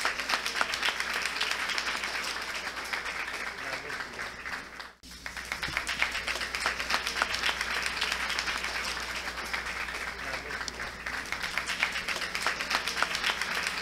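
Audience applauding steadily, with a brief break about five seconds in.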